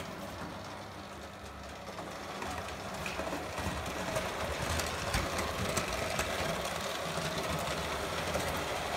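Prewar Lionel O-gauge electric steam locomotive and passenger cars running on three-rail tinplate track: a steady motor whir and a metallic rattle of wheels over the rail joints, with many small clicks. It grows louder a couple of seconds in as the train passes close.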